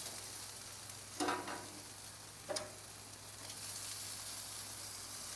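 Chicken wings sizzling steadily on a grill, freshly brushed with melted butter after being flipped, with two brief louder sounds about one and two and a half seconds in.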